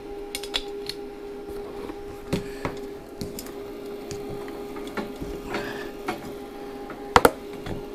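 Steady hum of a small inverter stick welder that is switched on, with scattered clicks and knocks as the electrode and holder are handled and touched to the metal, and a loud sharp double click a little past seven seconds in.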